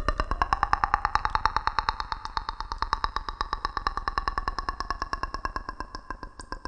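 A rapidly pulsing electronic tone, steady in pitch, that slowly fades near the end.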